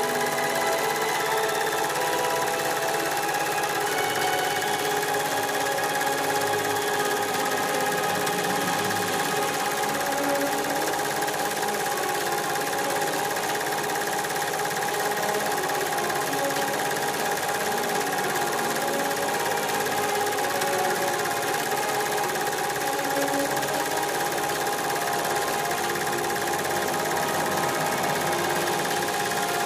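A steady mechanical whirring and rattling that holds an even level throughout.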